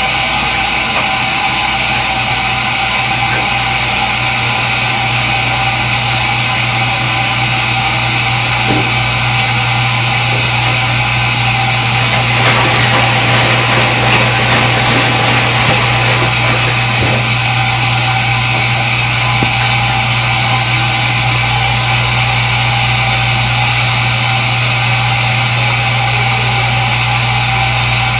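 Front-load washing machine running: a steady motor hum under a constant whir, with a stretch of rougher, irregular noise about halfway through.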